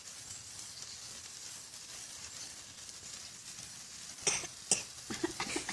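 Handheld sparkler burning with a steady fizzing hiss and fine crackle. From about four seconds in, a few short, sharp, louder sounds break in over it.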